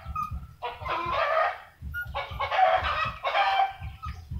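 A run of squawking animal calls, each about half a second to a second long, over a low rumble.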